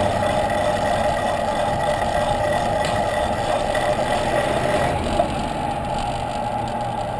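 Steady wind and road noise on a camera mounted to a moving road bicycle, with car traffic passing alongside.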